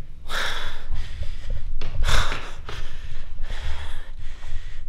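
A person's heavy breathing and gasps close to the microphone, the two loudest breaths about two seconds apart, over a low rumble from the handheld camera being moved.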